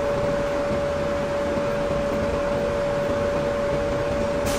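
Steady machinery drone with a constant high whine, and a brief hiss near the end.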